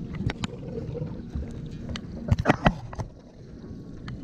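Low steady rumble of a boat's motor with several sharp knocks over it, the loudest a quick cluster of three about two and a half seconds in.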